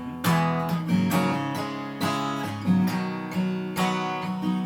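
Acoustic guitar strummed in an instrumental passage, chords struck every half second to second and left ringing, with no singing.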